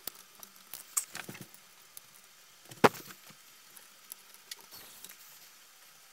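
Small scattered clicks and taps of a precision screwdriver and a 3D-printed plastic fan shroud as the shroud is screwed onto a 3D printer's hot-end carriage. One sharp click about three seconds in is the loudest.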